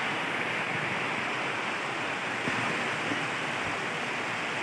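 Steady rush of waterfall water running over rock.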